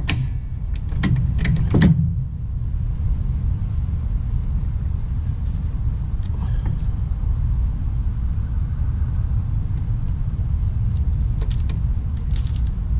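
Steady low rumble throughout, with a few short metal clicks from hand tools and bolts about a second in and again near the end.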